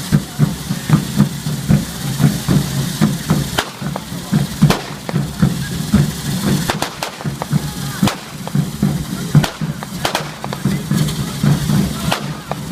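Ground-level fireworks and firecrackers going off: sharp irregular bangs and crackles over a continuous fizzing hiss, with a fast rhythmic drumbeat pulsing underneath.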